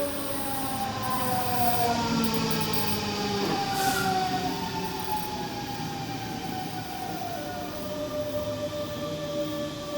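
Train squealing: several squeaky tones glide slowly downward together, with a short hiss about four seconds in.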